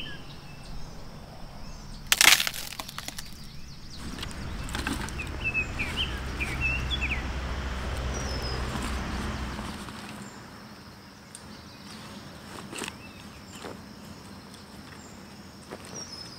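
A dry stick snapping with one sharp crack about two seconds in, followed by rustling and a few light clicks of sticks being gathered and handled. Birds chirp briefly in the middle.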